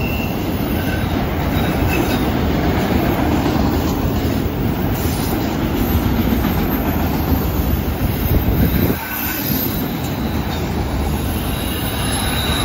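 Freight train of autorack cars rolling steadily past, a continuous rumble of steel wheels on rail, with faint high wheel squeal now and then as the cars take the curve.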